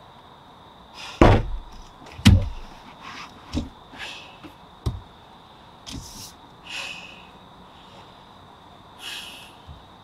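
Heavy thuds of banging on the car, heard from inside the cabin: two loud, deep blows a second apart, then a few lighter knocks, with short hissing breaths between them.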